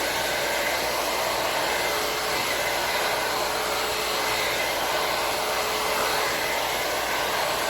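Hot air brush (hair dryer brush) running, blowing air in a steady whoosh with a faint steady whine.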